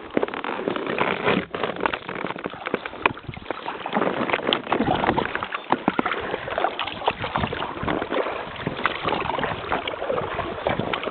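Paddle strokes in the water beside a Gumotex inflatable kayak: a steady rush of water noise broken by many small irregular splashes and knocks.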